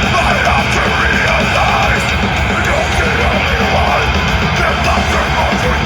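Swedish death metal band playing live at full volume: fast drums and distorted, down-tuned guitars, with a wavering lead line or vocal above them.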